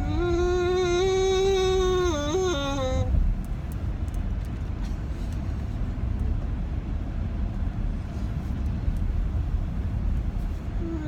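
A man's long, high-pitched vocal squeal, held for about three seconds, wobbling and dipping in pitch before it breaks off. A steady low rumble follows.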